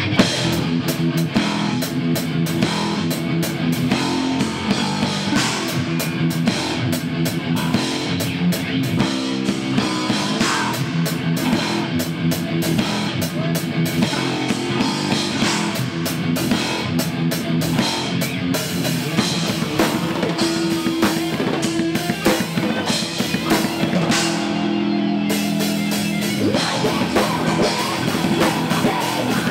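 Live metal band playing loud: fast drumming on a kit with crashing cymbals under distorted electric guitar chords, the whole band coming in together at the start. About three-quarters of the way through the cymbals stop for a second, leaving the guitar chords ringing, then the drums return.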